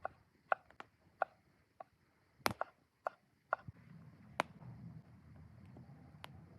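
A series of short sharp knocks, roughly two a second, with a few louder clicks among them. From a little under four seconds in, a steady low rumble rises beneath them.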